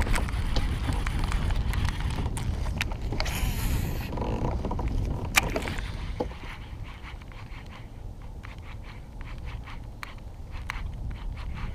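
Fishing-gear handling on a kayak: scattered clicks and scrapes over a low rumble, with a short whoosh about three seconds in and a sharp click at about five seconds. The rumble drops away about six seconds in, leaving only the small clicks.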